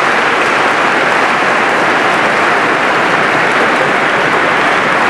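A congregation applauding in a large church: steady, dense clapping with no let-up.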